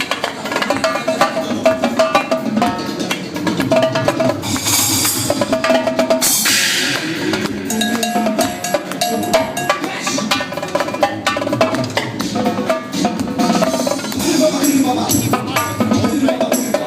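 Live Mapex drum kit played over electronic dance music, with quick strikes layered on the track's steady beat and two bright washes of noise, like cymbal crashes or sweeps, about four and a half and six and a half seconds in.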